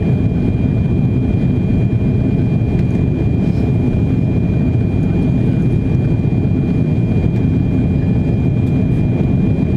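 Steady rumble of an Airbus A340-600 on approach with flaps extended, heard inside the cabin over the wing: airflow and its four Rolls-Royce Trent 556 engines, with a faint steady high whine over the rumble.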